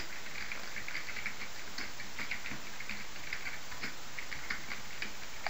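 Typing on a computer keyboard: a run of quick, irregular key clicks over a steady hiss.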